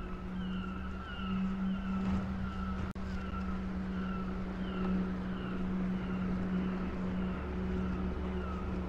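Steady low hum of a boat's engine running at a constant speed. Over it, a short high falling chirp repeats about twice a second, and there is a single click about three seconds in.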